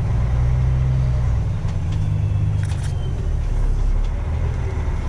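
Freightliner semi truck's diesel engine running at low speed as it rolls forward, heard from inside the cab; the engine note changes about a second and a half in. A few light clicks and rattles.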